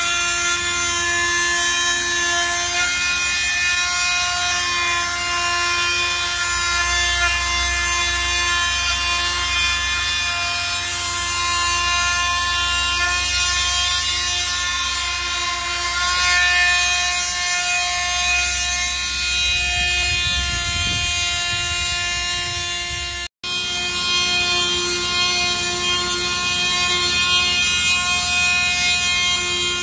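A power tool's motor running steadily at a constant high whine, with one very brief break about three quarters of the way through.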